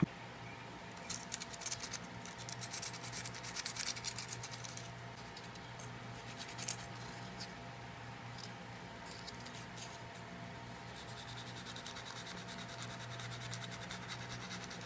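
Light scratching and small clicks from the fan's on/off selector switch being handled and probed at its contacts, busiest in the first few seconds. A steady low hum runs underneath.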